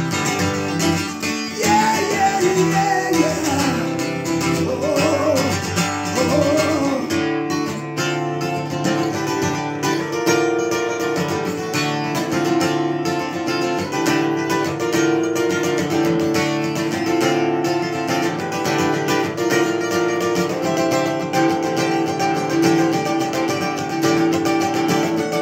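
Acoustic guitar strummed steadily in a solo performance, with a wordless, wavering voice line over roughly the first seven seconds before the guitar carries on alone.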